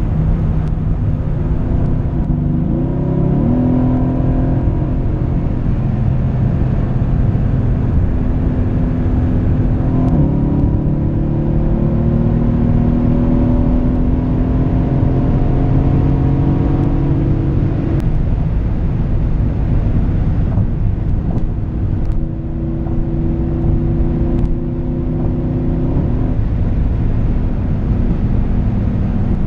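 Mercedes-AMG GT S 4.0-litre twin-turbo V8 heard from inside the cabin while driving at speed. The engine note jumps up quickly about three seconds in, then climbs steadily and drops back at gear changes of the seven-speed dual-clutch gearbox about ten, eighteen and twenty-six seconds in. Steady road noise runs underneath.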